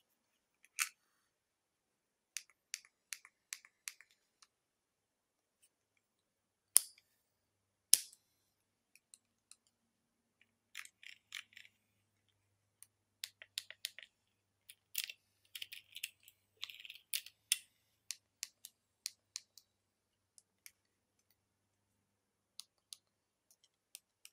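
Scattered clicks and taps of a Panasonic Lumix GH5 camera body handled with gloved hands, its buttons and dials being worked. Two sharper clicks come about seven and eight seconds in, and quicker runs of small clicks come in the second half.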